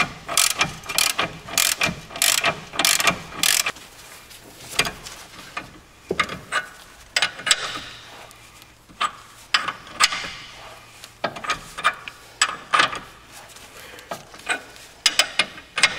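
Ratchet wrench clicking as it turns the threaded spindle of a bearing press tool, pulling a new front wheel bearing into the steering knuckle. Quick runs of clicks for the first few seconds, then slower, separate clicks with pauses between strokes.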